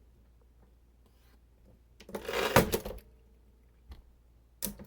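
1950s Royal manual typewriter's mechanism being worked by hand: a rattling, sliding mechanical sound of about a second, then one sharp click near the end.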